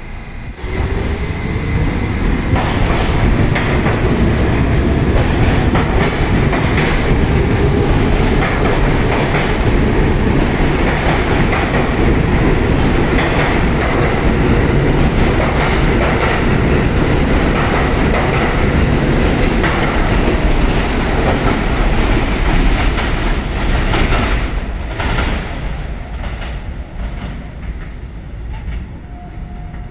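R68 subway train pulling out of the station: the motors whine up in pitch as it starts, then a steady loud rumble and clatter of wheels over the rails as the cars pass, fading away over the last several seconds.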